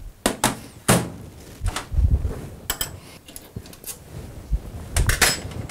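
Steel plates and fittings of a diesel pump assembly stand being handled: a series of metallic clicks and clunks, with a low thump about two seconds in and a cluster of knocks near the end.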